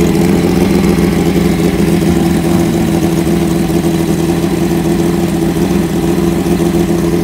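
Nitrous Suzuki GS drag bike's inline-four engine idling steadily through its open exhaust pipe, loud and even with no revving.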